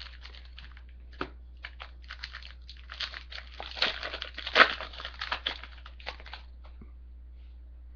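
A trading-card pack wrapper being torn open and crinkled: a flurry of irregular crackles and rustles, thickest through the middle few seconds.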